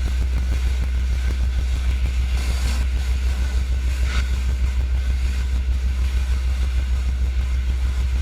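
Honda gas engine of a direct-drive pressure washer running steadily with an even low hum, under a constant hiss of high-pressure water spray.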